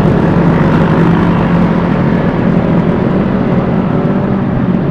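Vespa S 125 scooter's single-cylinder engine running at a steady speed while riding, with wind and road noise.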